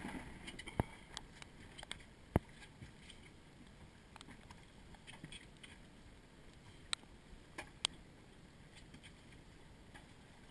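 Faint, even wash of choppy sea water by a boat, broken by a few sharp clicks and knocks, the loudest about two seconds in and two more around seven and eight seconds.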